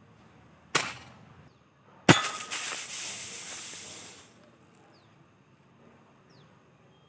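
Two sharp shots from an airsoft M23 rifle, about a second and a half apart. The second is followed at once by about two seconds of loud hissing that stops abruptly: a Thums Up soft-drink bottle hit and spraying out its fizz.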